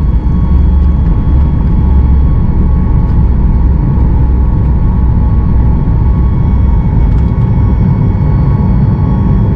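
Cabin sound of a Boeing 737 MAX 8 at takeoff thrust: the CFM LEAP-1B engines' loud, steady roar with a few steady whining tones. A deep rumble from the runway roll is strongest early and eases about halfway through as the aircraft lifts off and climbs.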